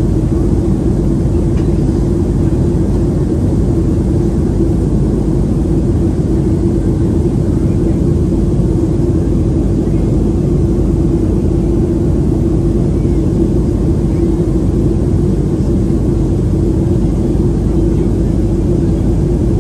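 Cabin noise of a Boeing 737-700 airliner in flight: the steady drone of its CFM56-7B turbofans and rushing air, with a steady low hum running through it.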